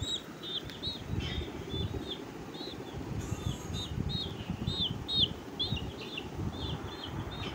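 Chick peeping: a steady run of short, high chirps, about two or three a second, over a low rumble.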